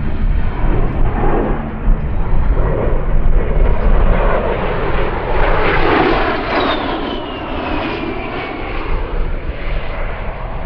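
A-10 Thunderbolt II's twin TF34 turbofan engines as the jet flies past: the engine noise swells and then eases off, with a whine that falls in pitch about seven seconds in.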